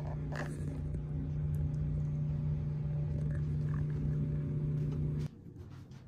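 Refrigerator running with a steady low hum, which stops abruptly about five seconds in.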